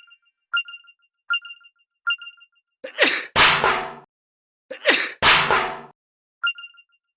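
Railroad crossing warning bell dinging at a steady rate of about one ding every three-quarters of a second. It is interrupted a few seconds in by two loud, noisy sound effects, each about a second long with a falling tone, then the dinging resumes near the end.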